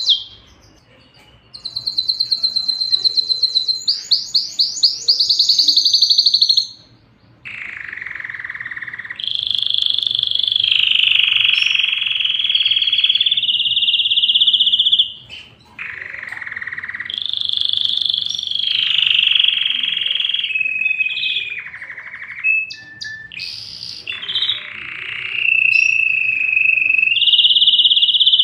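Domestic canary singing: fast, high trills first, then long rolling phrases, with brief pauses about a second in and again about seven seconds in.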